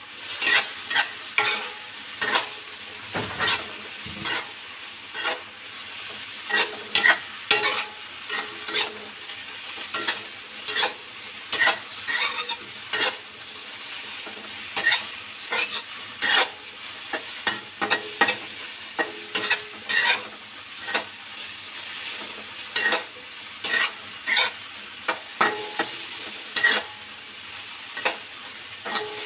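Eggplant strips sautéing in oil in a steel wok, a steady sizzle, while a metal spatula scrapes and clacks against the pan every second or so as the eggplant is stirred.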